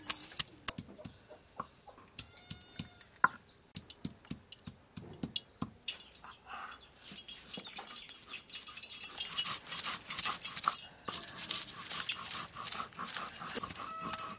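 Garlic cloves being crushed with a steel tumbler on a wooden board: scattered knocks at first, then a fast, dense run of knocks and scraping in the second half. A hen clucks briefly about two seconds in.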